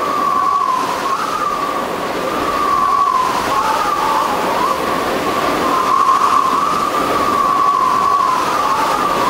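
Blizzard wind: a steady rush of noise with a wavering whistle running through it.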